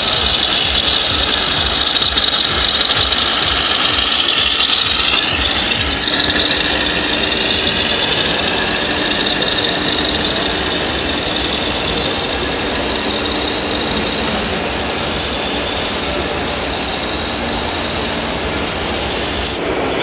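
Electric drive of radio-controlled model trucks running: a high motor-and-gear whine that rises and falls with speed, over a steady mechanical hum.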